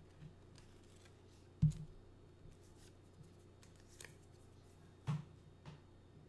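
Hands handling a small potted plant in a plastic nursery pot and pulling out its plastic name tag: a few soft clicks and rustles, with a dull thump about one and a half seconds in and another about five seconds in.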